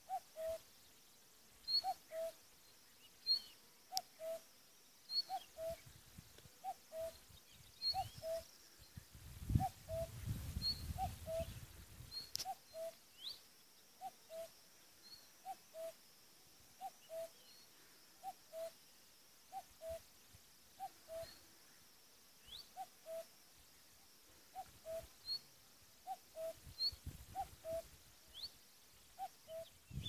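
A bird repeating a low two-note call, the first note slightly higher, about every one and a half seconds, with scattered short high chirps of small birds. A low rumble comes in for a couple of seconds around ten seconds in.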